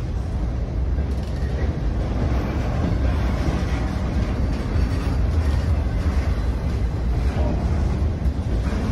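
Freight train rolling past, a steady rumble of its cars' wheels on the rails.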